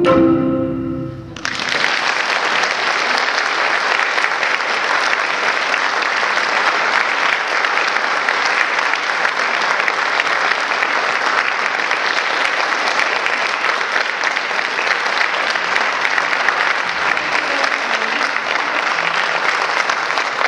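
A final marimba chord rings out and dies away in the first second or so, then an audience breaks into steady applause that carries on to the end.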